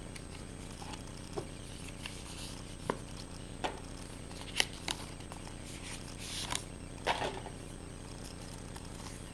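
Cardboard and paper packaging being handled: scattered light taps and clicks with a short rustle, as an iPhone box's cardboard tray and paper leaflet folder are lifted out and opened.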